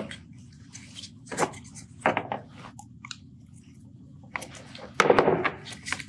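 Irregular knocks, clicks and clunks of hand work on parts and tools, the loudest a longer clatter about five seconds in.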